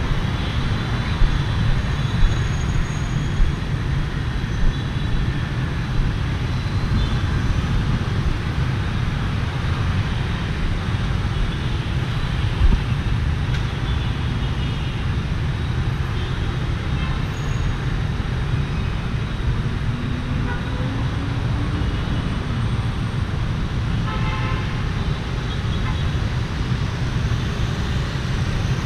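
Steady city street traffic, mostly motor scooters and cars passing close by, with short horn toots scattered through it and one longer horn about two-thirds of the way through.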